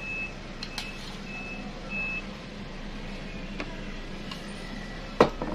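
A vehicle's reversing alarm beeping, a short high beep about every half second, stopping about two seconds in. A few small clicks follow, then a single sharp knock near the end, the loudest sound.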